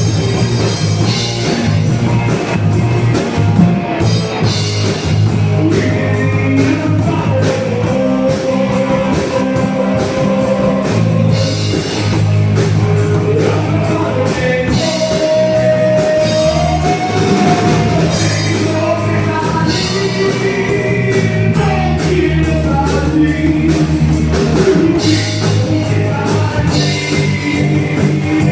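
Rock band playing live with a singer, over drums, electric guitar and bass.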